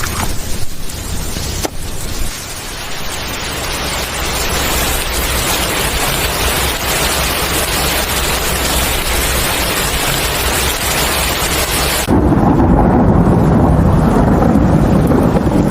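Steady monsoon rain falling as an even hiss over a low thunder rumble. About twelve seconds in it switches abruptly to a duller, deeper rushing with the hiss gone.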